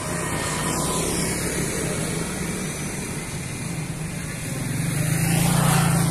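Motor scooters passing close by on a road: one goes by at the start, and another comes up and is loudest near the end.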